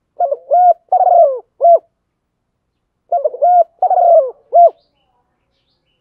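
Female spotted dove cooing: two phrases about three seconds apart, each of four notes, the third the longest and falling in pitch. It is the female's call used to stir up male doves.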